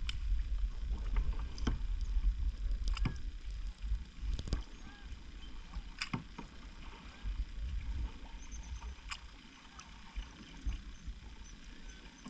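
Kayak paddling: double-bladed paddles dipping into calm water beside a plastic tandem kayak, with scattered sharp splashes and knocks of the strokes, over a steady low rumble. It is somewhat louder for the first four seconds, then quieter.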